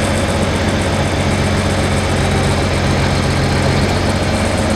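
Tractor engine running steadily at an even speed, with no revving.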